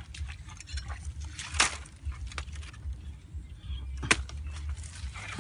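A wooden stick jabbed and scraped into a muddy hole: two sharp knocks, about a second and a half in and about four seconds in, with faint crackling and scraping between them, over a steady low rumble.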